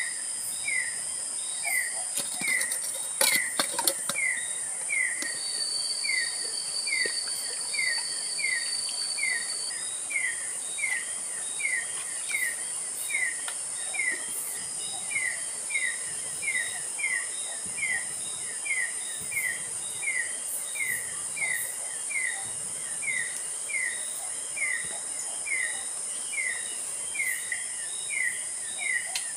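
Forest ambience: a steady high-pitched insect drone, with a short falling call repeated evenly about one and a half times a second throughout. A brief cluster of clicks sounds about three seconds in, and a thin steady whistle runs for a few seconds shortly after.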